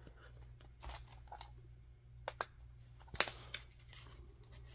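Fingers handling a cardboard lift-the-flap board book, peeling a flap open: a few faint scrapes and light taps, the loudest a little after three seconds in.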